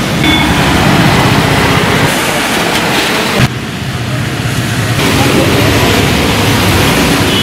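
Road traffic on a wet street: vehicle engines and tyre noise, with a steady wash of hiss. The sound drops abruptly about three and a half seconds in, then carries on.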